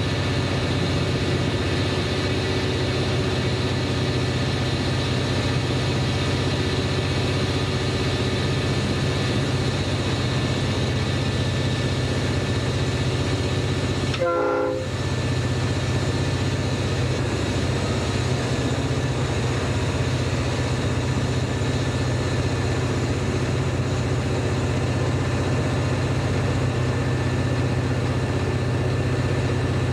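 Locomotive engine running with a steady low drone, heard from inside the cab as the train travels along the line, with rail and running noise over it. About halfway through, the sound drops out briefly for under a second.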